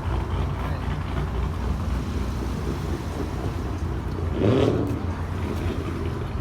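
A car engine idling with a steady low rumble, and a brief louder swell about four and a half seconds in.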